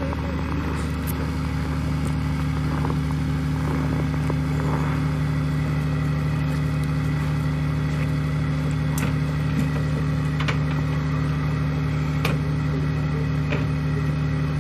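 Flatbed tow truck's engine running at a steady speed while the car is pulled up onto its tilted deck, with a few faint clicks.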